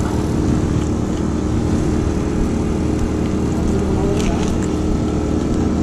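Portable generator engine running with a steady, even drone.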